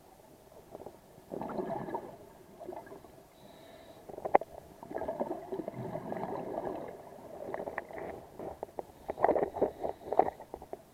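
Underwater bubbling and gurgling in irregular bursts, typical of a scuba diver's exhaled breath leaving the regulator, with scattered sharp clicks.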